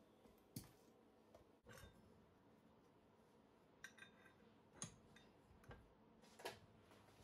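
Faint metal clinks and knocks, a handful spread through the near silence, as a stainless steel tube is shifted in a cast-iron bench vise and the vise handle is turned to re-grip it between TIG tack welds.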